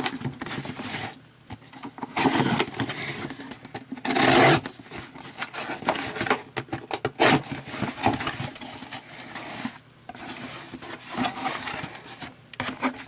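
A mailed package being opened by hand: irregular scraping and rustling of the packaging, with louder bursts about two seconds in and again about four seconds in.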